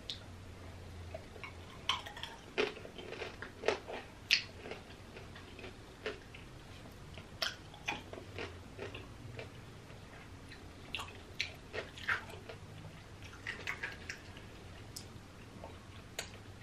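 Close-up chewing of candied strawberries (tanghulu), the hard sugar shell crunching and cracking between the teeth in irregular bursts of crackles.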